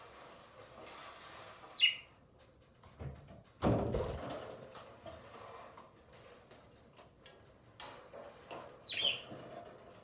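Two short budgerigar chirps, each a quick call sweeping downward in pitch, one about two seconds in and one near the end. Between them come a dull thump and a scatter of light clicks and rattles.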